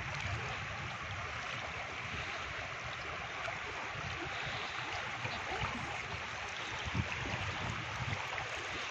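Steady rush of a fast-flowing river's current, heard from a raft on the water.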